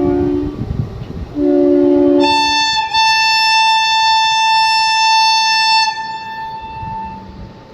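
Indian Railways train horns: a low two-note horn blast sounds briefly about a second and a half in. It is followed by a long single high-pitched horn note held for about three and a half seconds that then fades out.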